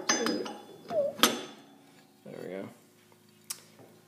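Metal clinks and scrapes of a steel electric clutch pulley being slid onto a motor shaft and turned by hand to seat on its key, with a sharp clink about a second in.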